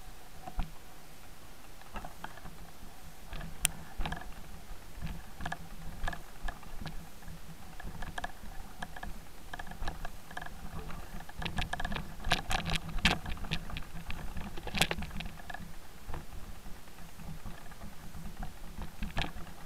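Mountain bike rolling down a loose, stony track: a steady low rumble of tyres on gravel under irregular clicks and rattles as the bike goes over stones. The clatter is thickest about halfway through.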